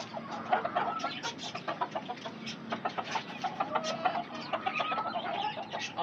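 Chickens clucking: a quick, irregular run of short clucks with a few brief, higher calls in between.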